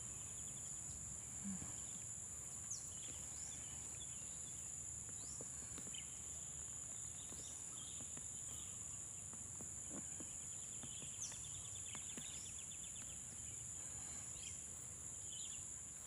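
A steady high-pitched drone of insects, with short falling bird chirps every second or two and a brief trill about eleven seconds in.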